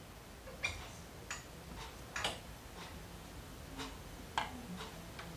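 Five or six faint, irregular clicks and taps from a clear plastic ruler and a heavy-duty metal stapler being handled together as the ruler is held across the stapler.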